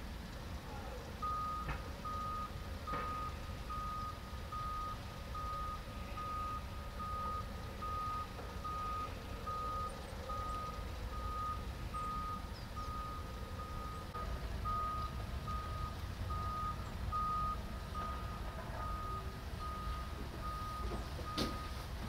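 Reversing alarm of heavy construction machinery: a single-pitched beep repeating a little faster than once a second, starting about a second in, over the steady low rumble of the machine's engine. A few sharp knocks near the end.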